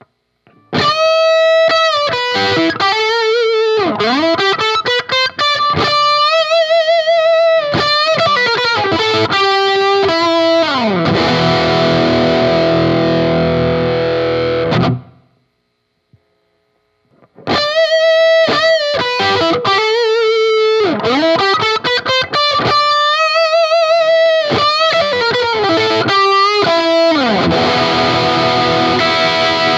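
Electric guitar played through a BOSS SD-1 Super Overdrive pedal, with a light overdriven tone. It plays a single-note lead phrase with bends and vibrato that ends on a ringing chord. After a short pause of about two seconds, it plays the same phrase again.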